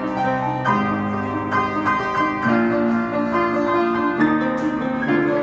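Instrumental background music: held chords that change every second or so.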